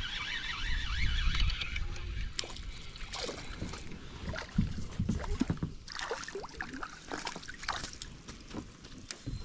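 Knocks, clicks and small water sloshes around a fishing kayak, with a low wind rumble on the microphone in the first couple of seconds.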